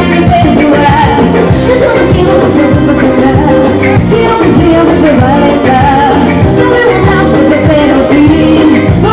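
Band playing loud music with a lead singer over a steady beat.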